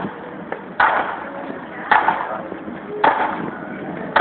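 Marching band drums struck together on a slow, steady beat, about one hit a second, with street noise between the hits.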